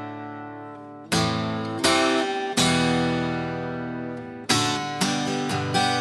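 Steel-string acoustic guitar strumming chords. A D chord rings out and fades, then three strums come about three-quarters of a second apart and ring. In the last second and a half the player breaks into a quicker strumming rhythm.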